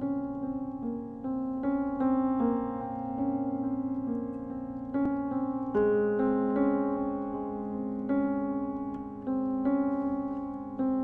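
Solo grand piano playing a slow, calm figure in the middle register: about one or two new notes a second, each struck note left to ring on into the next.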